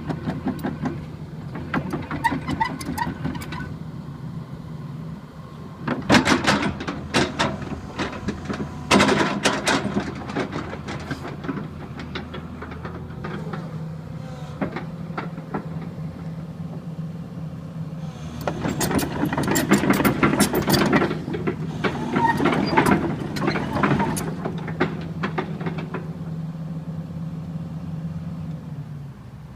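Daewoo Solar 130 excavator's diesel engine running steadily while the machine works, with several loud stretches of clattering from the working excavator. The sound falls away near the end.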